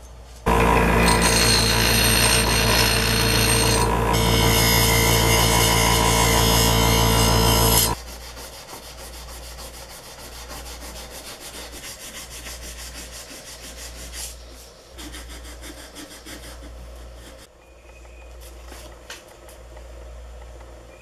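A loud, steady machine drone holding one pitch starts about half a second in and cuts off sharply after about eight seconds. Then comes hand sanding of a steel file with 800-grit sandpaper: quieter, quick back-and-forth rubbing strokes with short pauses.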